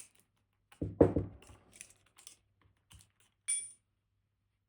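Small metal clicks and taps from tools working a stuck pin out of a disassembled high-security dimple lock, with a quick cluster of knocks about a second in and a click with a brief high metallic ring about three and a half seconds in.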